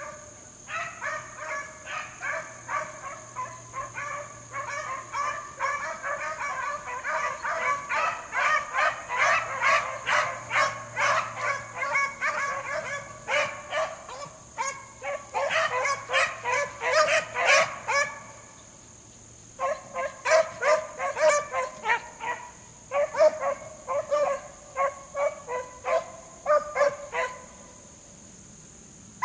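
A pack of beagles baying as they run a rabbit's scent trail, many voices overlapping in a near-continuous chorus. About two-thirds of the way through it breaks off briefly, then resumes as separate bays.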